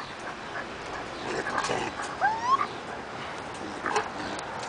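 Raccoon shifting about inside a wire-mesh cage trap, with faint rustles and light clicks. About two seconds in comes a short rising whistle-like call.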